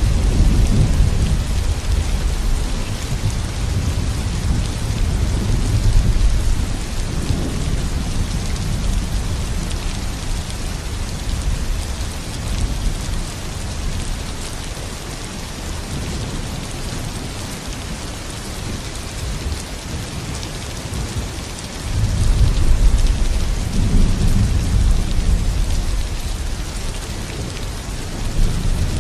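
Steady rain with low rolling thunder swelling and fading, loudest at the start and again about three-quarters of the way through.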